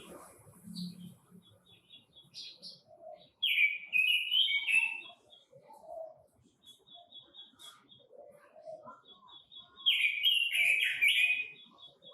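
Quế Lâm (ngũ sắc) bird singing hard: two loud bursts of rapid chirpy song, about three seconds in and again near the end, with runs of short repeated high chirps between them.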